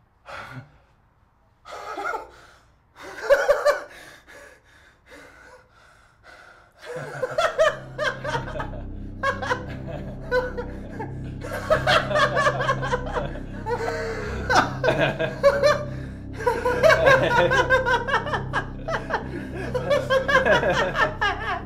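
Two men laughing, first in short separate bursts, then in long continuous laughter. Background music comes in about seven seconds in and carries on under the laughing.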